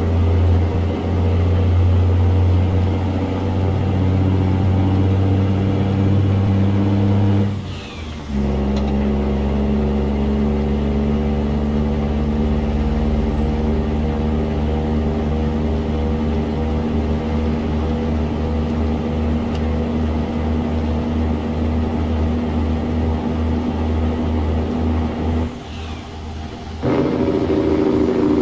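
Mercedes-Benz Actros truck engine running with a steady rumble. It breaks off briefly about eight seconds in and again near the end, coming back each time on a different note.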